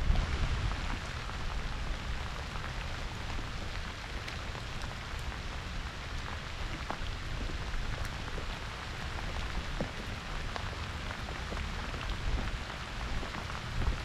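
Pouring rain falling steadily, with scattered drops ticking close by.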